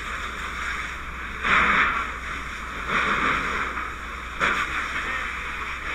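Firefighting hose nozzle spraying water: a steady rushing hiss that surges louder three times, about one and a half, three and four and a half seconds in.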